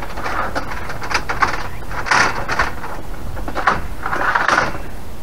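Irregular short scraping and sliding sounds, several in a row, from hands-on work taking apart an RV awning's metal rail and fabric.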